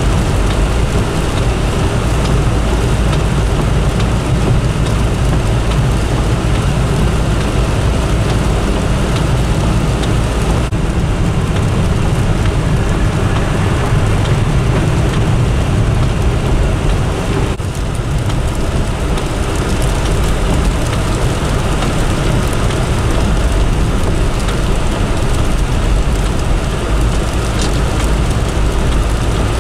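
Steady wind and traffic noise from a snow-covered interstate: a constant rushing hiss over a heavy low rumble.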